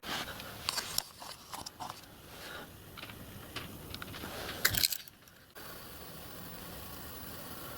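Light metallic clinks and rattles, a run of sharp clicks over about five seconds, then a sudden drop to a steady even hiss.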